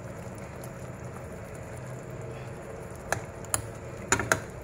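Fish simmering gently in sauce in a frying pan, a low steady hiss, with about four sharp clicks of a metal spoon against the pan in the last second and a half.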